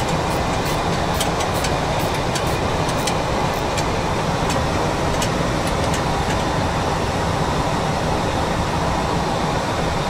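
Steady rushing noise in a Boeing 737 flight deck in flight, with scattered sharp ticks during the first half.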